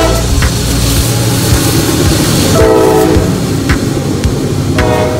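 CSX freight train passing close by: the diesel locomotive's air horn stops at the start, then sounds two short blasts, one about halfway and one near the end. Under it, the locomotive's heavy rumble for the first second and the wheels clacking over rail joints as the cars go by.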